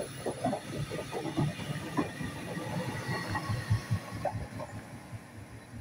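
TransPennine Express Class 397 electric multiple unit passing through a station, its wheels giving a dense, irregular clatter over a steady hiss, with a faint steady high tone. The sound fades as the rear of the train goes by, about four seconds in.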